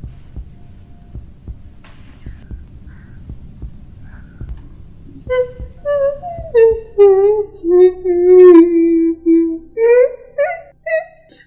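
A low, throbbing rumble, then from about five seconds in a loud, wavering, voice-like wail in several drawn-out notes that slide down in pitch and hold.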